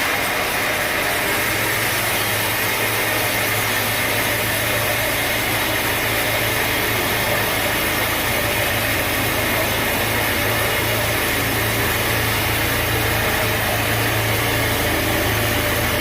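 Sawmill machinery running steadily with an engine drone; a low hum joins about a second and a half in and holds steady.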